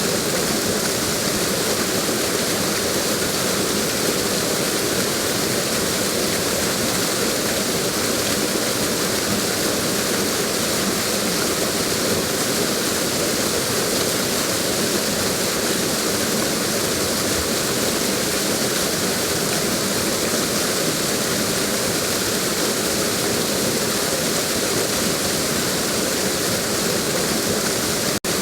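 Waterfall rushing in a steady, even roar of falling water, unchanging throughout, with a momentary cut-out near the end.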